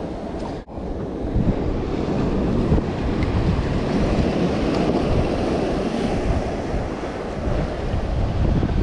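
Wind buffeting the microphone over choppy open water, a steady low rumble with the wash of waves, briefly cutting out about half a second in.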